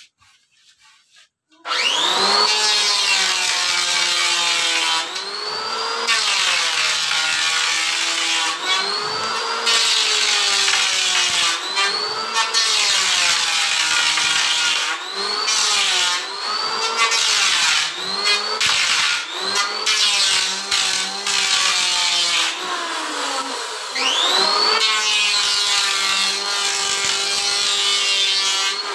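Electric wood planer starting up about two seconds in and cutting wood for a door panel. Its motor pitch dips and recovers every second or two as the blades bite into the wood.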